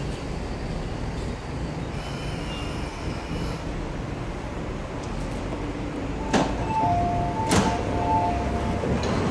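Metro Cammell electric train at a platform with a steady low rumble. About six seconds in, its sliding passenger doors open with two clunks, and a two-note electronic tone sounds for about two seconds.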